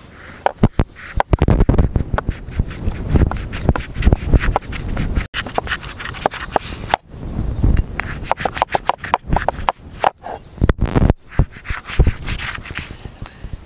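Large kitchen knife scraping and cutting a raw cow's ear: rapid rasping strokes of the blade over the hide, with sharp knocks of the blade on a wooden chopping block.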